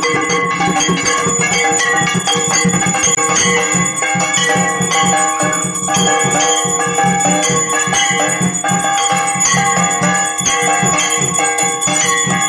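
Puja hand bell rung continuously during an evening aarti, with music playing underneath.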